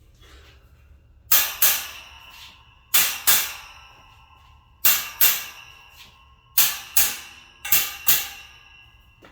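Metal wire shelf being struck down onto its posts to seat it: ten sharp blows in five quick pairs, each ringing briefly.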